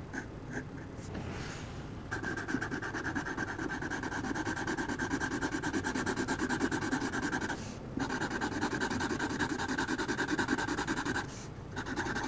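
Felt-tip Sharpie marker rubbing quickly back and forth on drawing-pad paper, coloring in a shape with fast, even scratchy strokes. The strokes start about two seconds in and pause briefly twice.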